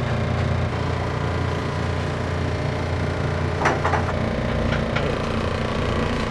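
Steady low hum of commercial kitchen equipment running, with a brief cluster of clatters about three and a half seconds in and a lighter one about a second later.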